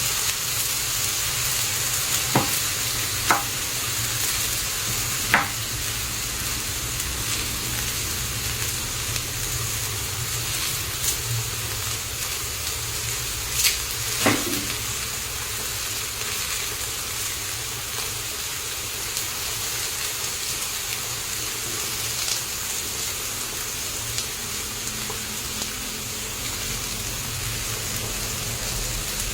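Pieces of rat frying in a pan, sizzling steadily, with a handful of sharp ticks scattered through, mostly in the first half.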